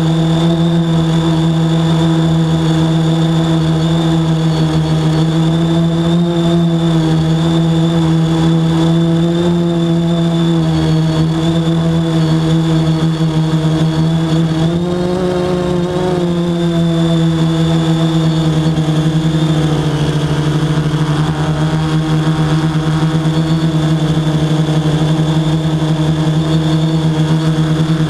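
Quadcopter drone's propellers and motors humming steadily in flight, a strong low hum with a thin high whine over it. The pitch rises briefly about halfway through, then settles slightly lower a few seconds later as the motors change speed.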